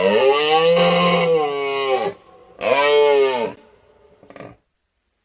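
Made-up creature calls for a European elk, mixed from moose, bull and camel recordings: one long call of about two seconds, then a shorter one, each rising and then falling in pitch. A faint short sound follows near the end.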